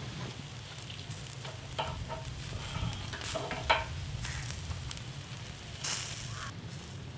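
Sizzling and crackling from chicken roasting over the fire in a barrel drum oven, over a steady low rumble. A few short ringing clinks come a little before two seconds in and again between three and four seconds in.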